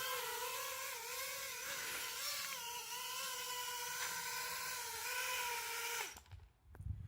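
5-inch FPV racing quadcopter flying, its Mr. Steele Silk brushless motors and Ethix props giving a steady high whine that wavers in pitch with throttle. About six seconds in, the whine drops in pitch and stops.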